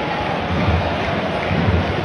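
Football stadium crowd noise: a steady, loud roar of many voices, with a low thud about once a second.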